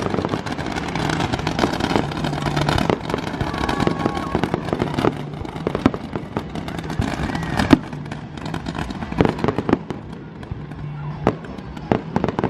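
Fireworks going off: a quick string of sharp bangs over steady crackling. The loudest bang comes about eight seconds in, and the bursts thin out and grow quieter after it.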